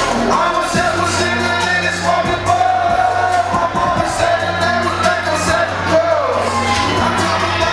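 Live hip-hop performance: a vocalist rapping over a loud backing track with a steady deep bass and regular hi-hat ticks.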